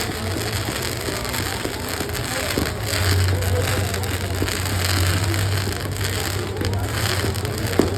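Fireworks crackling in a dense, rain-like patter of small pops, with one sharp bang near the end.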